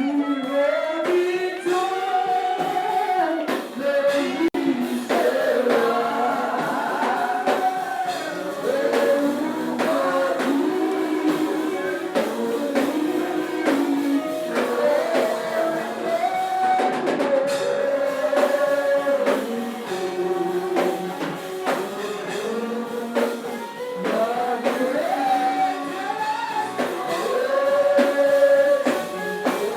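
Voices singing a worship song over music with a steady beat.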